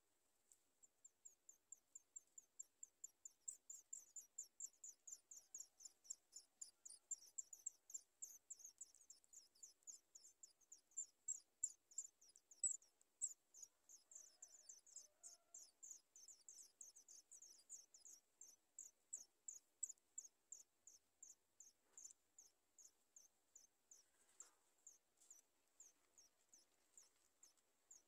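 Chat nestlings giving high, thin begging cheeps, about three a second, as they gape for food. Each cheep is a short downward sweep; the calling swells and then thins out near the end.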